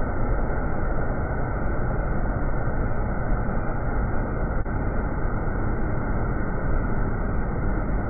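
Steady, loud roar of high, foaming whitewater rushing over the granite cascade of West Duchesnay Falls on the Duchesnay River.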